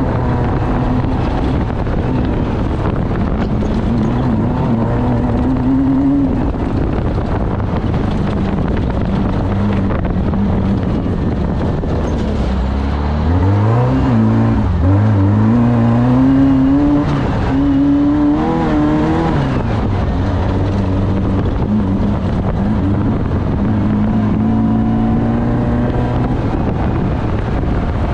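Off-road race vehicle's engine running hard, its revs climbing and dropping several times about halfway through.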